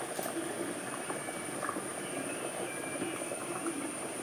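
Fish curry simmering in a clay pot: a steady bubbling hiss, with a few faint clicks from the ladle against the pot.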